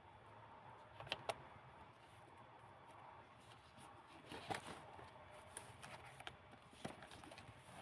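Faint rustling of old book-paper pages being handled and turned, with a few soft clicks and taps, two about a second in and others in the middle and near the end.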